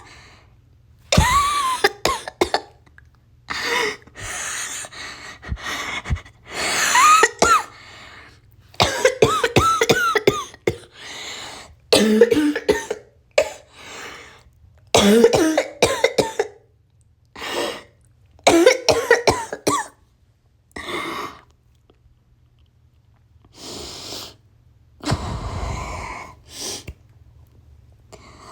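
A person coughing hard in repeated fits, acting out an asthma flare-up. The coughs come in clusters with short gaps and a lull of a couple of seconds about three-quarters of the way through.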